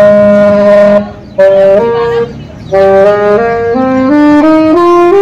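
Music: a solo wind instrument playing a melody of held notes with two short breaks, the notes climbing step by step near the end.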